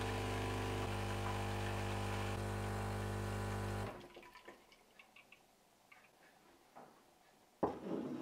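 Automatic coffee machine's pump running with a steady hum as it dispenses coffee and milk into a cup, then cutting off suddenly about four seconds in. A few faint drips and ticks follow, and there is a sharp knock near the end.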